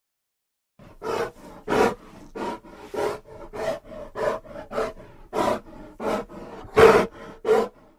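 Bear vocal sound effect: a rhythmic series of about a dozen short calls, roughly one every half second, beginning about a second in, with the loudest near the end.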